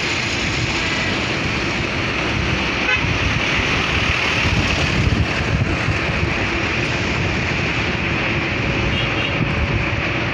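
Steady rush of road and traffic noise heard from a moving vehicle on a busy road: engines and tyres blended into one continuous sound.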